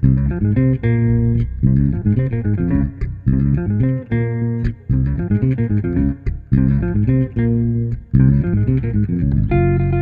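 An archtop electric guitar and an electric bass play together, the guitar picking a repeating arpeggiated figure over the bass line. Near the end they change to held notes.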